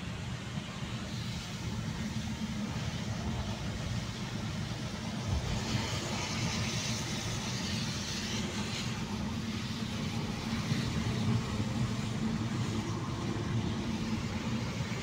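Car cabin noise while driving on a wet road: a steady low rumble of engine and tyres under an even hiss of tyres on wet tarmac. The hiss grows brighter for about three seconds, starting some six seconds in.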